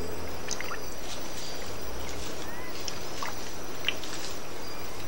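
Water lapping and splashing lightly over a steady hiss as rhesus macaques drink at a pool, with scattered short high chirps and clicks.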